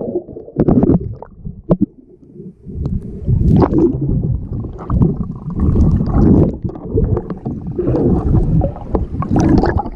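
Muffled underwater sound picked up by a GoPro in its waterproof housing: water gurgling and bubbles, with scattered dull knocks, as it is carried under a swimming pool's surface.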